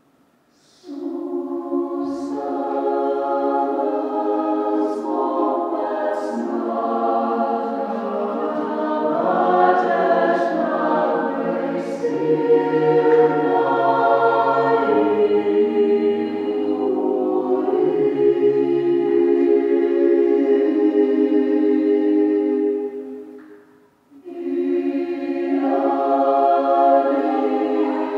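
Mixed youth choir of men's and women's voices singing a choral song. The singing comes in about a second in, breaks off briefly near the end, and then comes in again.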